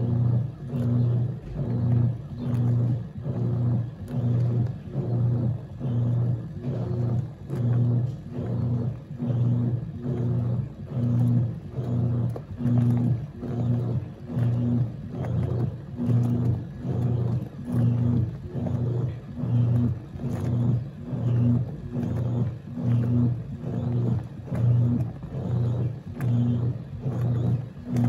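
Wanke Sally 5 kg semi-automatic washing machine agitating a full tub of sudsy water: the motor hums in even surges a little more than once a second as the agitator swings back and forth, churning the water.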